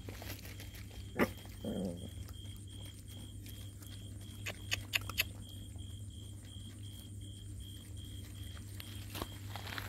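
A puppy gives one short whine a little under two seconds in, amid a few sharp clicks and taps from the puppies eating at their bowl, with a cluster of clicks about five seconds in. A steady low hum and an even, high pulsing tone run underneath.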